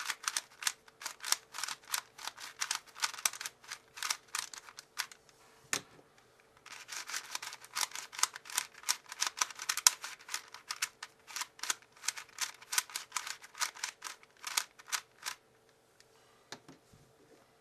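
Plastic speedcube being turned quickly by hand, its layers clicking and clacking in rapid runs. There is a short break with a single thump about six seconds in, and the turning stops a couple of seconds before the end.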